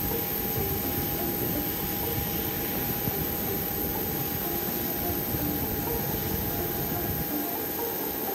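Jet airliner engines running steadily: an even rushing noise with a constant whine and a low, uneven rumble beneath.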